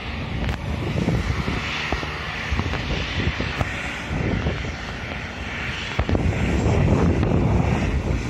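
Jet airliner engines rumbling as a plane passes low overhead, growing louder about six seconds in, with wind buffeting the microphone.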